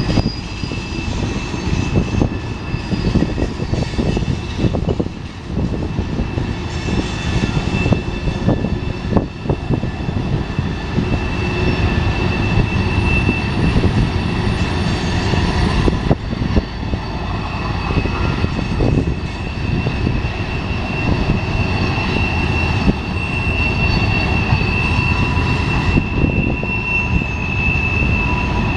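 BNSF freight train rolling past with a heavy, steady rumble, over which a thin high-pitched wheel squeal holds through much of the time.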